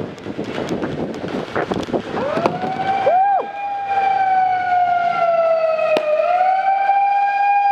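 A couple of seconds of clattering movement with sharp clicks, then a horn sounds one long, steady blast. Its pitch sags slowly and comes back, like a canned air horn held down, with a single sharp click partway through.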